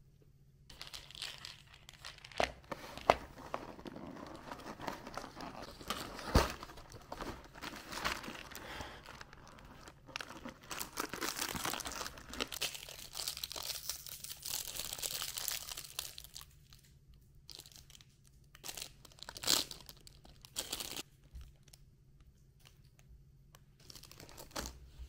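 Irregular crinkling and rustling of something being handled, with scattered sharp taps and knocks. It is busiest for most of the first two-thirds, then thins out to a few separate knocks.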